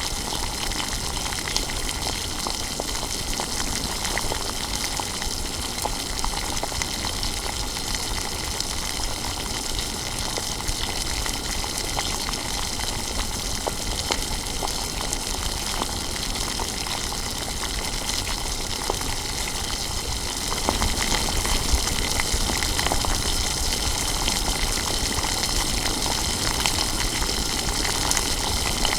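Kitchen water sound: a steady rush of gushing liquid with fine crackle, getting a little louder about twenty seconds in.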